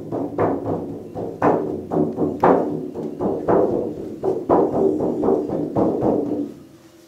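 Large hand-held frame drum struck with a beater in a steady tribal drumming beat, a louder stroke about once a second with lighter strokes between. The drumming stops shortly before the end.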